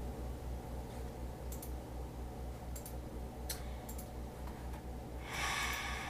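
A few faint computer mouse clicks over a low steady hum, with a short hiss near the end.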